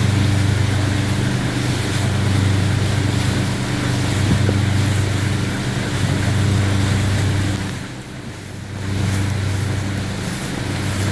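Steady drone of a small boat's engine running underway, with water rushing along the hull and wind on the microphone. Everything dips briefly about eight seconds in, then comes back.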